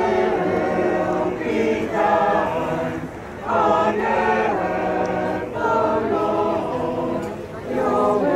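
Church choir singing in several voice parts, phrase by phrase with short breaths between phrases.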